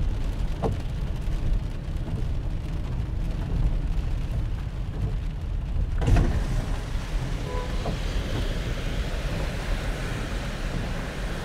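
Car driving through a flooded street in heavy rain: a steady low road rumble under the hiss of rain and water. About six seconds in comes a sudden loud burst, after which the watery hiss grows stronger.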